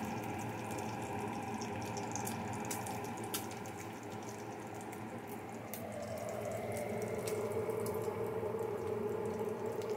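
Bacon sizzling in its grease in a cast-iron skillet: a steady hiss with scattered sharp crackles and pops.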